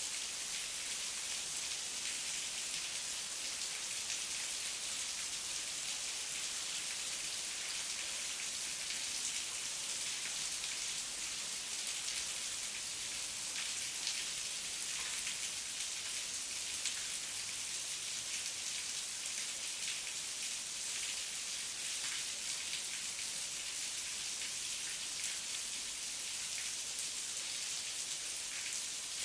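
Steady heavy rainfall, a dense even hiss of drops with fine pattering ticks, unchanging throughout.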